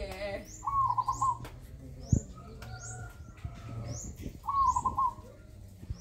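A caged zebra dove (perkutut) sings its cooing song, two stepped coo phrases a few seconds apart. Another bird's short, high, rising chirps repeat about twice a second throughout, and there is one sharp knock about two seconds in.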